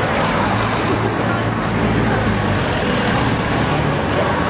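Road traffic passing on a busy city street: a steady wash of engine and tyre noise, with a low engine hum from a passing vehicle through the first two seconds or so.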